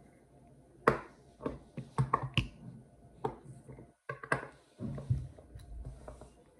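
Handling noise from two spinning fishing reels: an irregular series of sharp clicks and knocks as they are set down on a wooden table and their handles and parts are moved.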